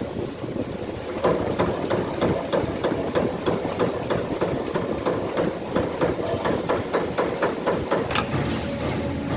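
Amada 3612 punching machine punching sheet metal: a rapid, even series of sharp punch strokes, about four a second, over a steady machine hum, starting about a second in.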